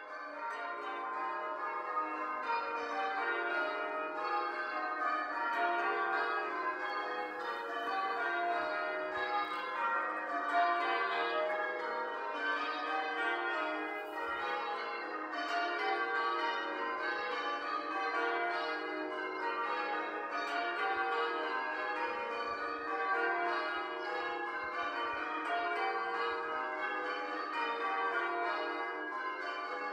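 Church tower bells being rung in change ringing: a continuous run of bell strokes, one after another in quick, even succession.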